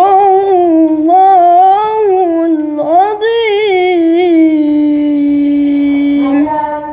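A boy's voice chanting Quran recitation in the melodic tilawah style: long drawn-out phrases with wavering, ornamented pitch, a short breath about three seconds in, then a long steady held note near the end.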